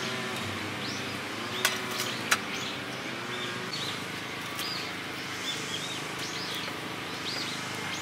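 Small birds chirping again and again over a steady outdoor hiss. Two sharp clicks come about a second and a half and just over two seconds in, from metal firewood tongs knocking against the burning logs and fire stand.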